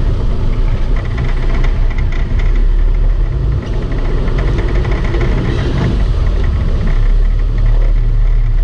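A sportfishing boat's inboard engines running with a steady, loud low rumble, with a wash of rushing water over it.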